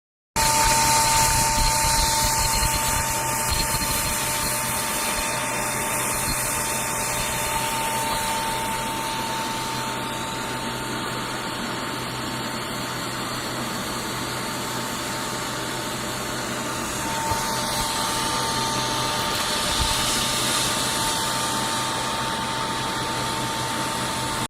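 Plasma powder cladding machine at work: a steady hiss of the plasma arc and gas with a constant high whine, starting abruptly and running without a break.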